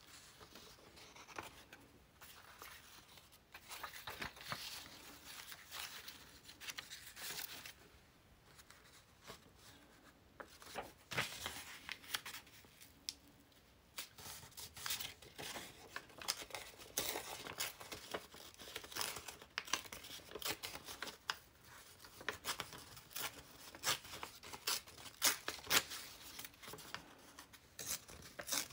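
Paper and card being handled on a wooden tabletop: rustling and sliding sheets, then many light taps and clicks as pieces are picked up and set down, busier in the second half.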